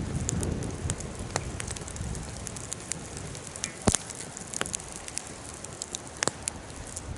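Wood fire burning in a fire pit: a steady crackling hiss with scattered sharp pops, the loudest about four seconds in and another near the end.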